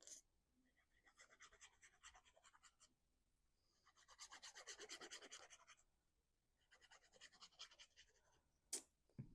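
Faint, rapid scratching in three bouts of quick back-and-forth strokes, the middle bout the loudest, followed by two sharp clicks near the end.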